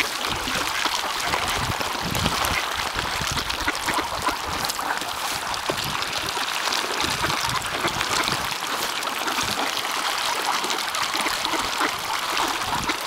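A dense flock of wild ducks splashing and dabbling at the water surface as they scramble for scattered food. It makes a continuous busy patter of small splashes and bill clicks.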